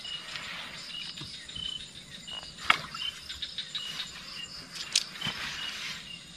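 Night insects chirping: a short, high chirp repeats about every two-thirds of a second over a steady insect hum. Two sharp clicks of handling stand out, one nearly three seconds in and another about five seconds in.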